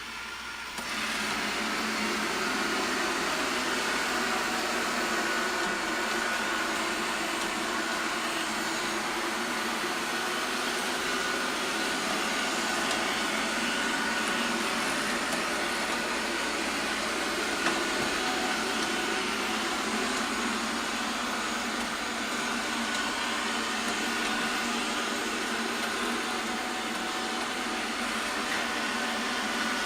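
Eufy RoboVac 15C Max robot vacuum running, its suction motor and brushes making a steady noise with a faint high whine. It comes up to full level about a second in.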